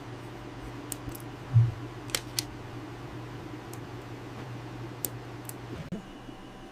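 A steady low mechanical hum, like a small fan or motor, runs and stops shortly before the end. A few sharp light clicks and one soft thump sound over it, typical of small tools being handled on a repair bench.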